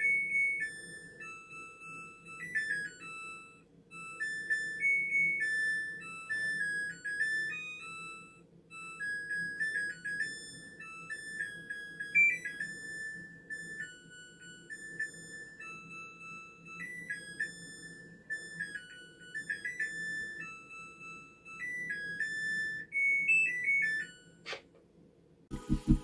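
Samsung WW60K40G00WDLP washing machine playing its end-of-cycle tune through its beeper: a long melody of pure electronic beep tones over a faint steady hum, signalling that the wash is finished. A single click near the end.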